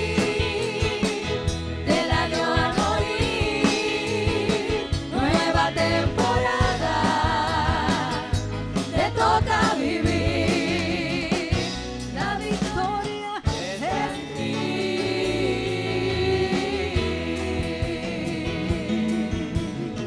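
Live gospel worship music: a group of singers with wavering vibrato over a band with drums.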